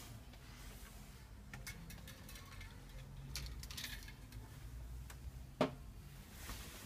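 Faint scattered clicks and ticks over a low rumble, with one sharp knock about five and a half seconds in.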